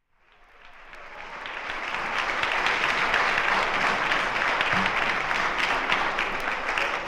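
Audience applause and clapping, fading in over about the first two seconds, then steady.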